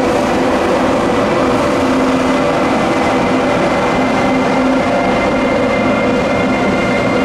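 A train running past close by, loud and steady: a dense rolling rush with several steady tones over it.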